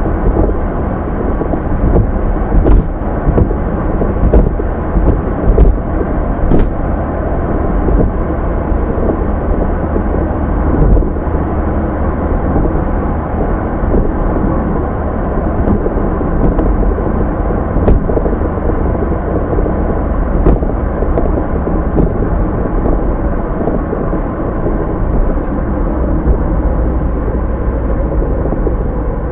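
Car on the move heard from inside through a dashcam: a steady low rumble of tyres, engine and wind, with a few faint clicks scattered through it.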